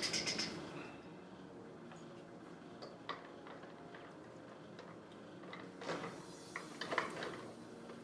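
Faint knocks and taps of a carpeted cat-tree board being set onto jute-wrapped posts and shifted into place, with a couple of taps about three seconds in and a cluster of knocks near the end.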